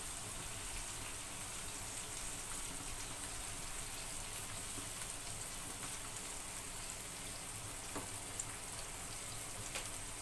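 Batter-coated small fish frying in hot oil in a pan, a steady crackling sizzle, with a couple of faint clicks near the end.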